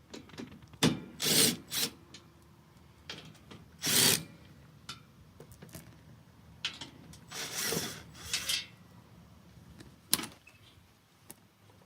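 Power drill/driver spinning out the bolts that hold the mower's ignition switch panel, in about four short bursts, with clicks and knocks of metal parts being handled in between.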